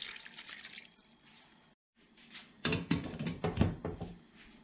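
Water poured from a steel saucepan onto raw diced pork in a stainless stock pot, splashing for about a second. After a short break comes a louder run of clinks and knocks as the glass lid goes onto the steel pot.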